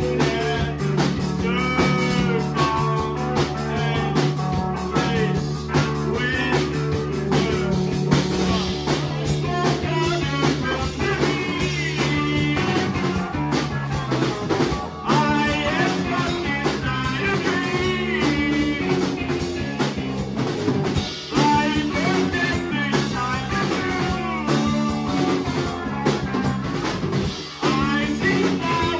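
Rock band playing live: electric guitars and a drum kit, with a man's lead vocals coming in and out over the steady beat.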